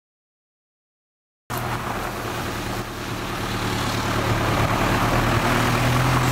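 About a second and a half of silence, then a van's engine running as it drives along, with road and tyre noise; the engine note rises slowly toward the end.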